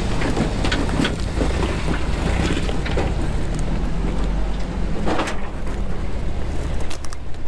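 Old Toyota pickup truck's engine running steadily at low crawling speed as the truck climbs over a boulder, with a few knocks and crunches from the tyres and rocks about one, three and five seconds in.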